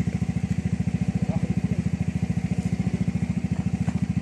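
Yamaha Mio Gear scooter's single-cylinder four-stroke engine idling steadily through an Apido aftermarket exhaust, an even, rapid low putt that doesn't rev up or down.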